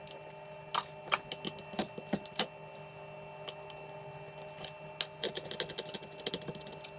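Dry, papery garlic skin crackling in small irregular clicks as cloves are peeled by hand, over a steady low hum.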